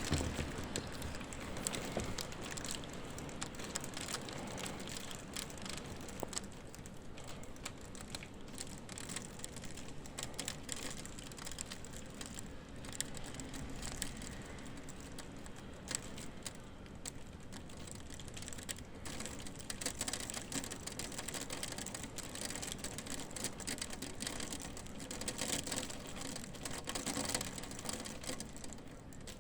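Small hailstones falling and striking hard surfaces, a dense steady clatter of many small ticks, mixed with rain.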